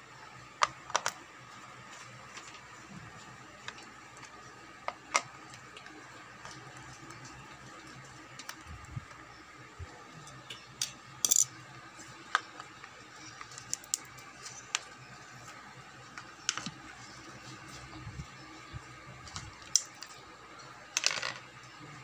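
Irregular clicks and clatters of a screwdriver and hard plastic parts being handled while an electric kettle's base is unscrewed and taken apart, with a brighter metallic clink about eleven seconds in and a short rattle of clicks near the end.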